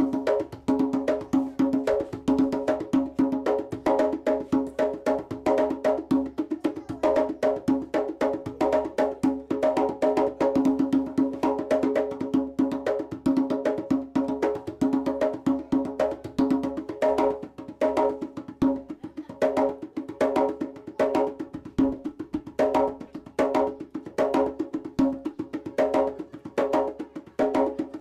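Rope-tuned djembe played by hand: a fast, steady rhythm of open tones and sharp slaps, the drum head ringing under each stroke. It is a basic djembe rhythm being demonstrated.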